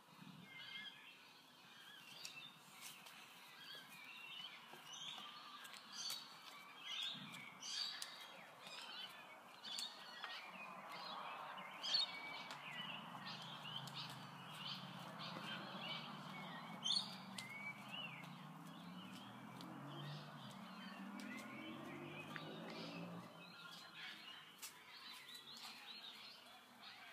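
Small birds chirping and calling again and again in the background, with a low hum that swells in the middle, rising slightly in pitch, then fades.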